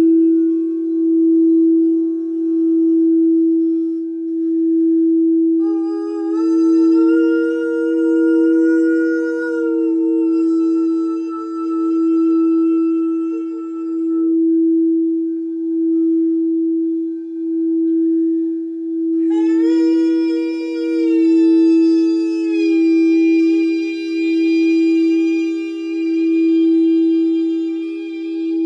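Frosted quartz crystal singing bowl rimmed with a mallet: one steady humming tone that swells and fades about every two seconds. A woman's voice tones long sustained notes over it, twice, each sliding up at the start; the first begins about six seconds in and the second about two-thirds of the way through.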